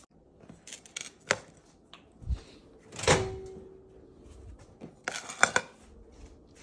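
Clicks and knocks of an oven door and a dish being handled as the pizza is put in to heat. A loud click about three seconds in is followed by a short low steady tone, and a quick cluster of knocks comes near the end.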